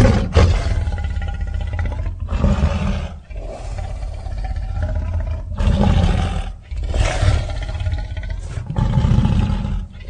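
Custom sound-effect roars of the Scorpius rex hybrid dinosaur: about six roars and growls, each a second or two long, following close on one another.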